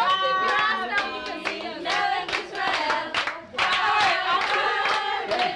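A group of people singing together while clapping their hands.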